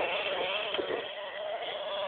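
CEN Genesis RC monster truck's small nitro engine running with its pitch wavering, fading as the truck moves off and growing louder again near the end.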